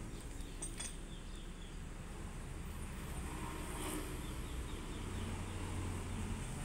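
A vehicle engine idling with a low steady hum that grows stronger about five seconds in, with faint bird chirps.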